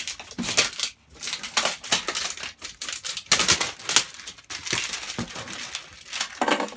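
Clear plastic shrink wrap on a cardboard box crinkling and crackling in irregular bursts as it is cut and pulled off.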